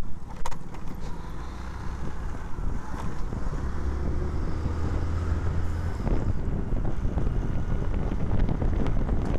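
Wind rushing over the microphone of a moving Hero scooter, over the low steady hum of its engine while riding in traffic.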